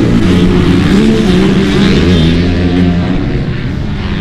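Motocross bike engines running hard on the track. The pitch rises and falls with throttle and gear changes, with a drop about two seconds in.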